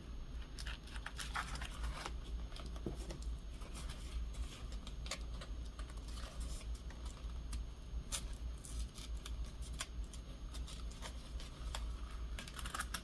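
Paper and cardstock being handled at a craft table: scattered light taps, clicks and crinkles as a glued paper piece is pried up and moved over, with a steady low hum underneath.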